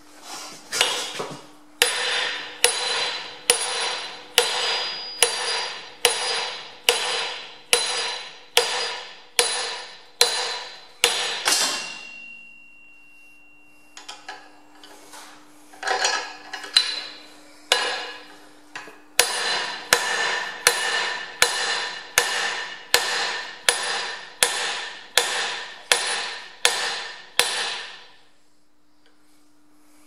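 Steady hammer blows on steel, driving a pivot pin into a John Deere 2030 front axle beam through a pusher tool, about one and a half blows a second. Each blow rings metallically, and there are two runs of blows with a pause of a few seconds between them.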